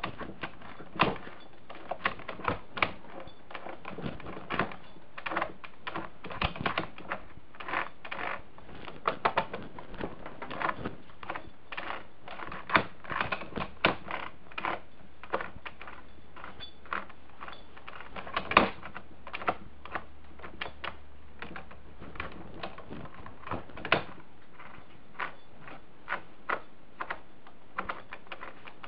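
Gears inside a rebuilt 1960 Wheel Horse three-piece tractor transmission clicking and clacking as its input pulley is turned back and forth by hand and the shift lever is worked: an irregular patter of sharp clicks, several a second. In reverse it makes a noise that worries the builder as a possible fault in the reassembly.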